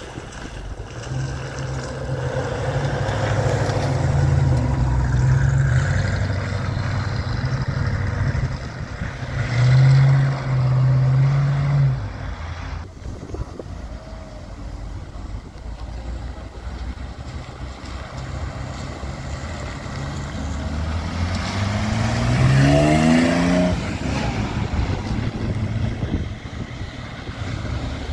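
Classic car engines running at low revs. About three-quarters of the way in, one engine revs up with a rising note.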